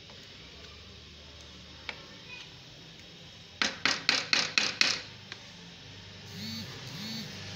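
A wooden spoon knocking against a metal cooking pot, about six quick sharp knocks in a little over a second, while thick curry masala is stirred and fried.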